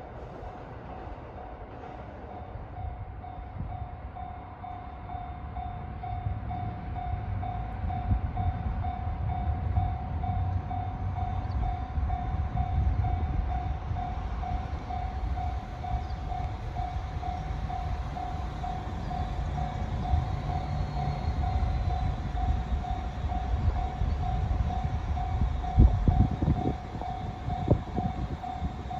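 Japanese level-crossing warning bell ringing in a steady fast pulse while a KiHa 85 diesel limited-express train runs past, its rumble building a few seconds in and staying loud through the rest, with a few heavier wheel knocks near the end.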